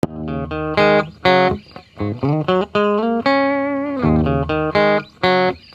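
Intro music: a guitar melody of separate plucked notes, some of them sliding in pitch.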